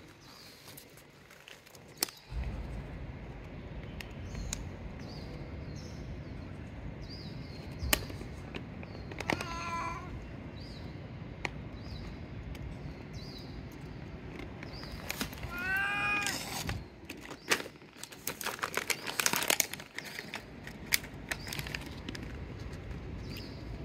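Calico cat meowing twice: a short meow near the middle, then a longer meow that rises and falls in pitch a few seconds later.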